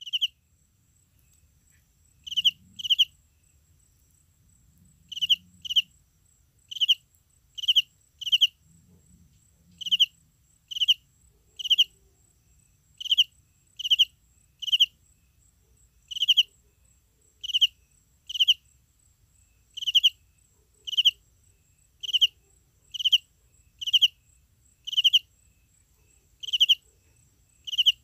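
An insect chirping: short, sharp chirps about once a second, often in pairs, each a quick trill of pulses, over a faint steady high-pitched tone.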